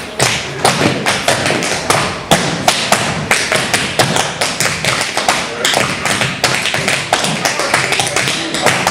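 Several dancers' tap shoes striking a hard floor in a dense, rapid run of taps and stamps: a group tap routine with shuffle steps, just after a count-in.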